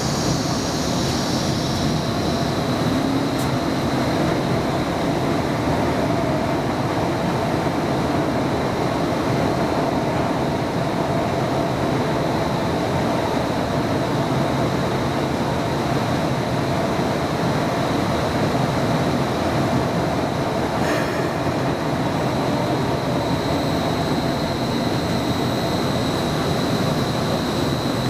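Streetcar (Inekon Trio) running along its track, heard from inside the car: steady rolling and running noise with a steady high whine over it, and one short click about three-quarters of the way through.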